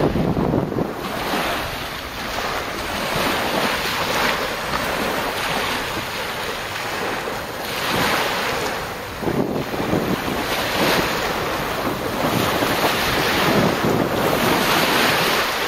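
Small waves breaking and washing up a sand and pebble beach, the hiss swelling with each wash every few seconds, with wind rumbling on the microphone.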